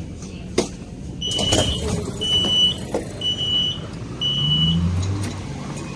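Alstom Citadis 302 tram's door-closing warning: four high electronic beeps, about one a second, over a low rumble. A sharp click comes just before the beeps.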